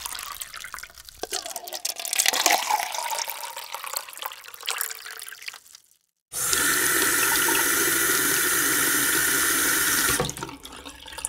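Water sound effects. For about six seconds there is irregular splashing and gurgling. After a short silence, a steady stream of water runs as from a tap into a sink, then cuts off sharply about ten seconds in.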